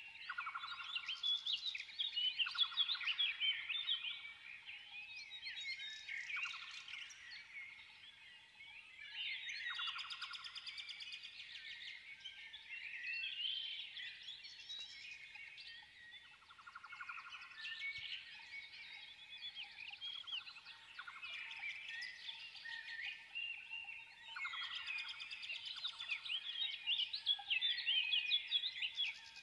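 Birds chirping and twittering, many quick high chirps overlapping in waves that rise and fall every few seconds.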